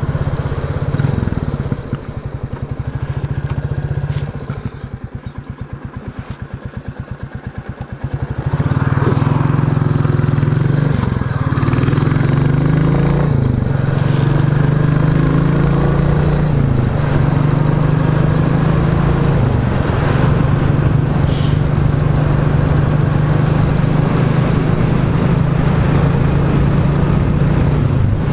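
Royal Enfield Classic 350 single-cylinder engine running through a Hitchcock's de-cat exhaust pipe. The note drops for several seconds to a slow, even beat. Then the bike pulls away, revving up through several gear changes, and settles into a steady cruise.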